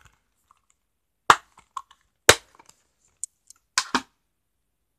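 Plastic DVD cases being handled: four sharp clicks and knocks with a few fainter ticks between, the last two close together.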